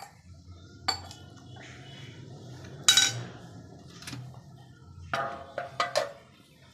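Dishes and spoons clinking and clattering as food is served and eaten, a handful of separate knocks with the loudest clatter about three seconds in and a few ringing clinks near the end.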